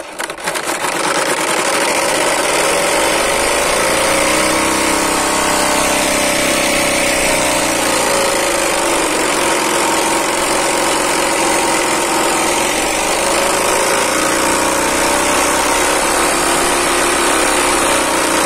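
Homemade bicycle 'silencer': a strip of bottle plastic flapping against the spokes of a spinning wheel, buzzing through a cut-open plastic bottle with its cap off, a rapid motorbike-like rattle. It builds up over the first second and then holds loud and steady, its pitch wavering slowly.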